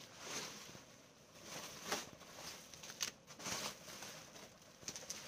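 Plastic bubble wrap rustling and crinkling in short irregular bursts as it is handled around a wrapped hardcover book.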